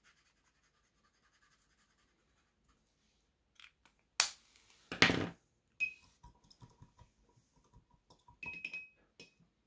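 Faint scratching of an Edding 5100 acrylic paint marker's tip dabbed on card. Then clicks and a brief clatter, the loudest about five seconds in, as art supplies are handled and set down on a wooden table, followed by a few small ticks and light clinks.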